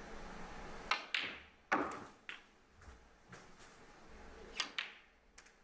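Snooker cue tip striking the cue ball about a second in, followed by sharp clicks of ball striking ball and a louder knock with a short ring. A few more separate ball clicks follow as the balls come to rest and the break goes on.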